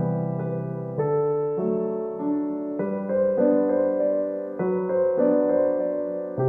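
Soft, slow piano music: sustained notes and chords changing about every second.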